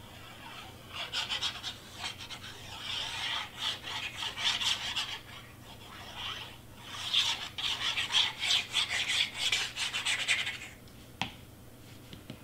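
Nozzle of a squeeze bottle of craft glue rasping across cardstock in quick rubbing strokes as glue is run along a paper piece. The strokes come in two spells with a short lull between them, and there is one sharp click near the end.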